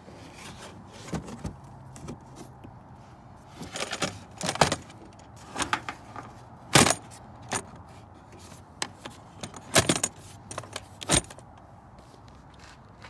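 Plastic air filter housing of a 7.3 Powerstroke's AIS intake being closed by hand: a series of sharp clacks and metallic clicks as the lid is seated and its metal spring clips are snapped shut, the loudest about seven seconds in.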